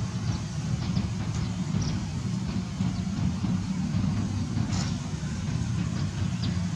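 A steady low rumble, with a few faint short high clicks scattered over it.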